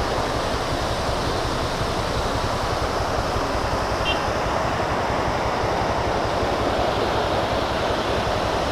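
Small roadside waterfall: water pouring over a stone wall and splashing onto rocks below, with a steady, even rushing.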